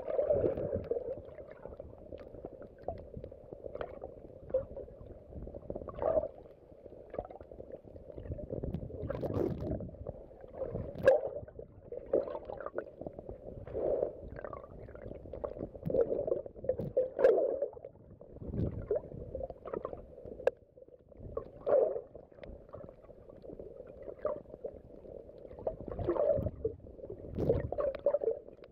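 Muffled underwater sound from a submerged phone: irregular gurgling and sloshing of water that swells every few seconds, with a few sharp clicks.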